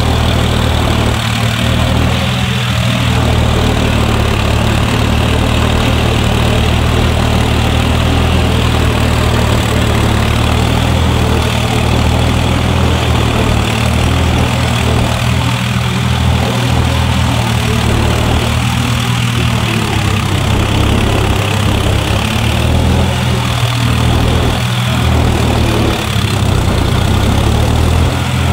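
A John Deere tractor's diesel engine running steadily under load as it pulls through deep mud, heard close to its upright exhaust stack. The engine note shifts slightly up and down a few times near the end.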